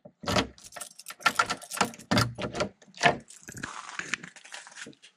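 A bunch of keys jangling and a key working in a door lock, with a string of sharp clicks and rattles, then the door being pulled open.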